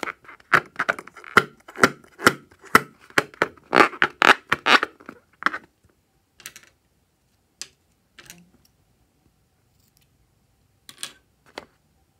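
Fingers handling a liquid-filled latex balloon: a quick run of short rubbery squeaks and taps over the first five seconds or so, then a few scattered ones.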